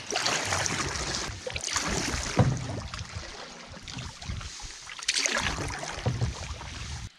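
Canoe paddle strokes in calm lake water: a few surges of splashing and swirling water, with a sharp knock about two and a half seconds in.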